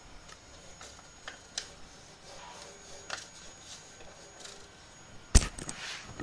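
Scattered light clicks and taps of hands handling things, with one sharp knock about five seconds in followed by a short run of clicks.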